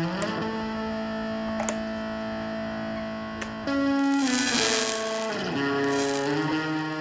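Electric guitar playing through an amp: notes held for a few seconds, then a louder chord struck a little over halfway in, with notes sliding in pitch before settling into a new held chord.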